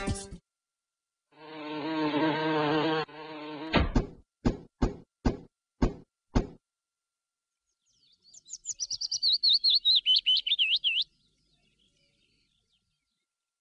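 Cartoon sound effects: a low pitched tone for about two seconds, then six sharp clicks about half a second apart, then a fast warbling, bird-like twittering chirp for about three seconds.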